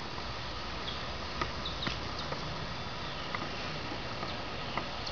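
Scattered light ticks and rustles from a groundhog with a peanut butter jar stuck on its head, moving over dry leaves and grass, over steady background hiss with a few faint high chirps.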